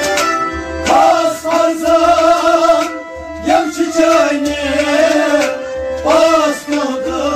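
Devotional kalam sung by a solo voice in long, wavering held notes, over regular drum beats and a steady sustained accompaniment.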